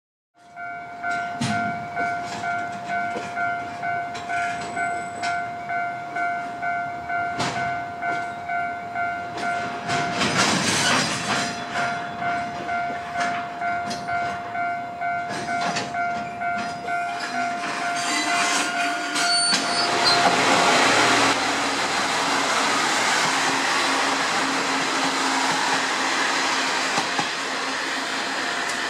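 A station departure signal sounds a steady pulsing electronic tone, about two pulses a second, and cuts off after about twenty seconds. Then a Kashima Rinkai Railway 6000 series diesel railcar pulls out, its engine working under power over the noise of the wheels on the rails.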